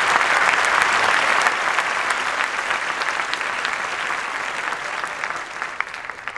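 Audience applauding, loudest at first and slowly dying away near the end.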